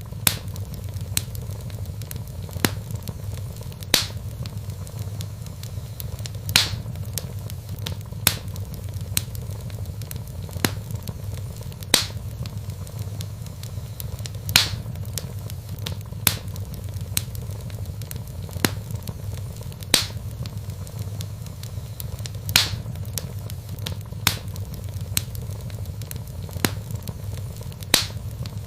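Log fire in a fireplace crackling: sharp pops every second or so, with louder ones every few seconds, over a low steady rumble.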